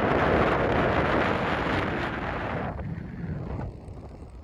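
Wind buffeting the microphone in a strong gust that eases off after about two and a half seconds into a lower rumble.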